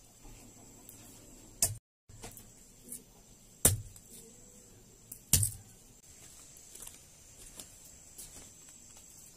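Garlic being broken apart and peeled by hand: three sharp knocks about two seconds apart, among fainter clicks and crackles of dry papery skins.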